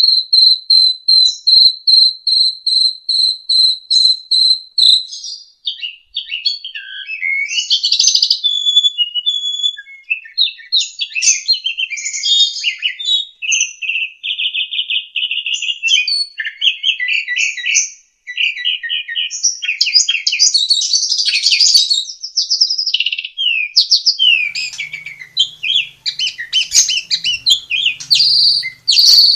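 Starling singing loudly: it opens with a run of quick, evenly repeated high notes, about four a second for the first five seconds. It then moves into a varied song of whistles, slurred notes and fast buzzy trills.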